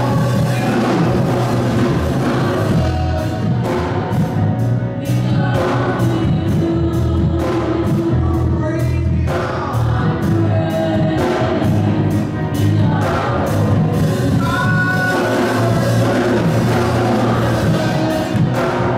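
Live gospel worship music: a group of praise singers in harmony backed by a band with drums.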